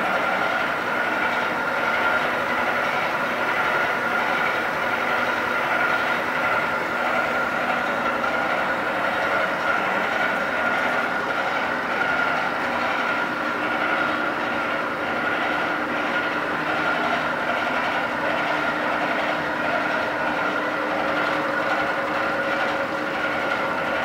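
Automatic tapping machine installation running: a steady mechanical din with a constant high whine and a fine, rapid rattle over it, unchanging throughout.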